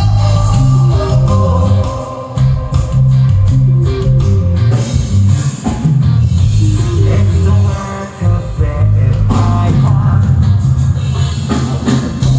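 Live rock band playing: distorted electric guitars, bass guitar and drum kit, with some singing.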